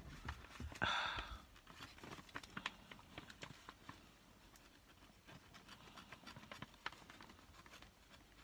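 Faint scattered clicks and scratches of fingers picking at a sticker on paper packaging, with a brief louder hiss about a second in.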